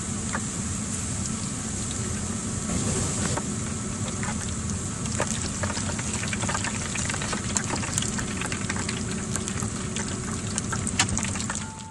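Tempura-battered butterbur buds (fuki no tou) deep-frying in hot oil: a steady sizzle thick with fine crackling and popping. It cuts off suddenly near the end.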